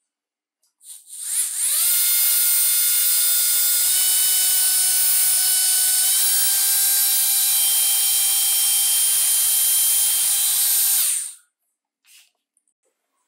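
Bare 18 V brushed DC drill motor running unloaded on a bench power supply at about 18.7 V. It spins up with a rising whine about a second in and runs with a steady high whine. Its pitch steps up slightly a couple of times as the supply voltage is turned up, and it winds down and stops near the end.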